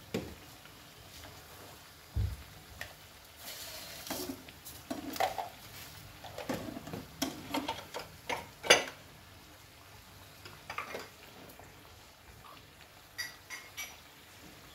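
Samosas deep-frying in hot oil with a faint steady sizzle, while a slotted metal spatula scrapes and clicks against the pan as it turns them, in an irregular run of taps.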